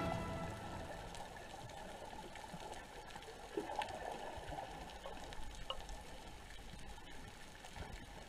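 Faint underwater ambience recorded beneath the surface: a low, even hiss of water with scattered soft crackles and a few light clicks, after background music fades out in the first moment.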